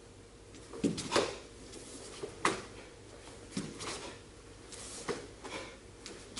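Two karateka performing the Heian Sandan kata: a scattering of short, sharp snaps and thuds as their gi sleeves snap on blocks and their bare feet step on the wooden floor, the loudest about a second in.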